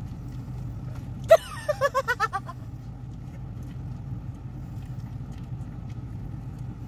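Car engine idling with a steady low hum. About a second in, a short burst of laughter in quick pulses that fall in pitch.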